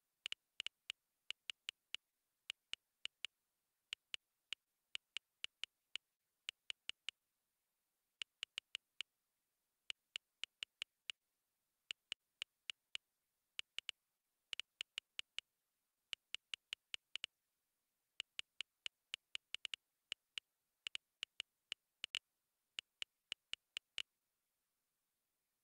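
Smartphone on-screen keyboard key-press clicks as a message is typed: short, sharp ticks in quick bursts of several taps, with brief pauses between words.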